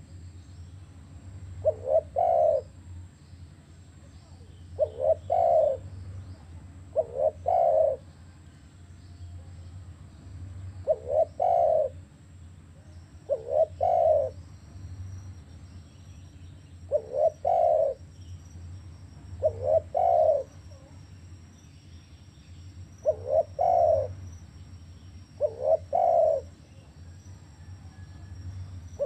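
Spotted dove cooing its song over and over: each phrase is two short coos and a longer one, repeated every two to three seconds and often in pairs, over a faint low hum.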